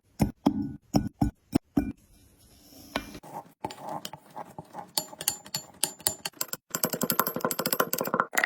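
White kinetic sand being worked by hand or tool: a quick run of sharp taps, then soft grainy crumbling that builds into a fast, crisp crunching crackle near the end.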